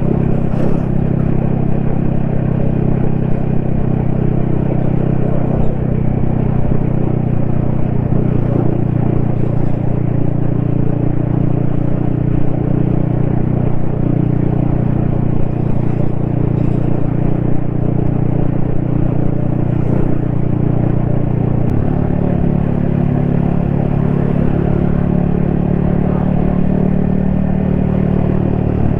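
Yamaha XSR155's single-cylinder 155 cc engine running steadily under way, heard from the rider's helmet with wind and road noise. The engine note changes pitch about three-quarters of the way through.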